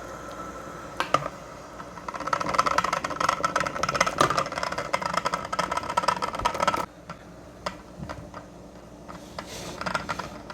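Metal cans rattling and clinking in a pan of boiling water as they are set in. A dense rattle starts about two seconds in and stops abruptly a few seconds later.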